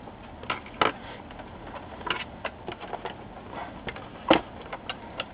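Scattered clicks and light knocks of a laptop's LCD panel being handled in its lid, with small screws and a metal bracket touched on the bench. Two knocks, about a second in and about four seconds in, are the loudest.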